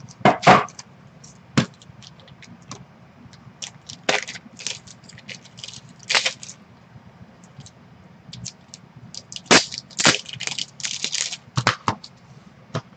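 Crackling and clicking of trading-card packaging and hard plastic card cases being handled: a scattered string of short crackles and taps, the loudest about half a second in and again around ten seconds in.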